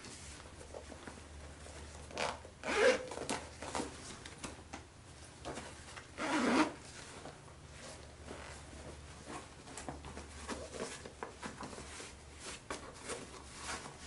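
Handling noise of a denim tote bag: fabric rubbing and rustling with small clicks, and two louder rasping strokes about three and six and a half seconds in.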